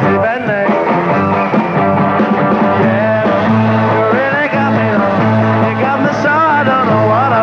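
Rock band music: electric guitars, bass and drums, with voices singing in over the band about three seconds in.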